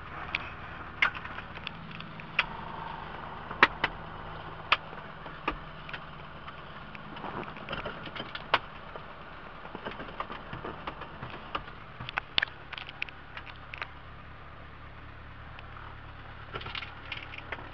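Scattered sharp clicks and knocks of switches and controls being worked in a small light airplane's cockpit before engine start, over a faint low hum.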